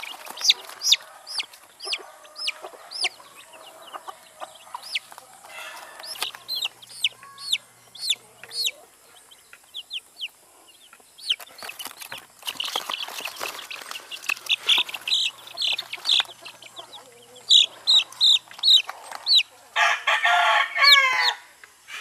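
One-week-old chicks peeping in flurries of many short, high, falling peeps. Near the end an adult chicken gives a louder, lower call lasting about a second.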